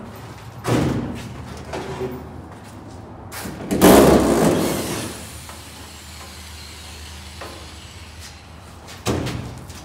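A cordless drywall screw gun with a Robertson bit backing a screw out of a cargo trailer's wall, a short loud burst about four seconds in. A clunk from the stepladder or handling comes just before it and another near the end.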